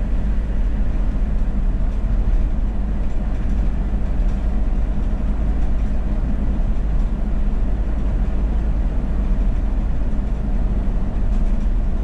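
Steady low rumble of tyre and engine noise heard inside a car's cabin while cruising at highway speed.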